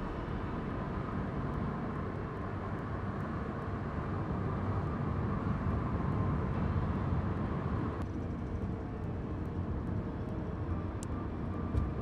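Car running along a road, heard from inside the cabin: a steady low rumble of engine and tyre noise, with one short knock near the end.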